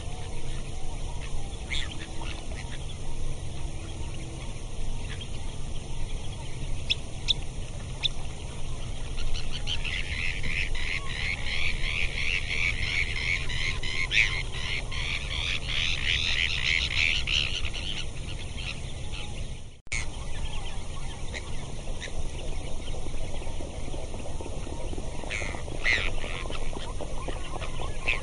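Birds chattering in quick, dense calls for several seconds in the middle, with a few single calls before and after, over a steady low rush of outdoor ambience. The sound drops out for an instant about two-thirds of the way through.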